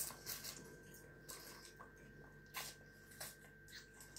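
Faint mouth sounds of a person chewing: soft wet smacks and small clicks, about eight of them spread unevenly through a few seconds.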